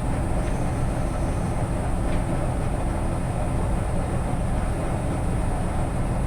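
Milling machine running steadily in low gear with a slitting saw spinning, as the table is raised to touch the saw onto the workpiece. A faint short high ring comes about half a second in and a small tick about two seconds in.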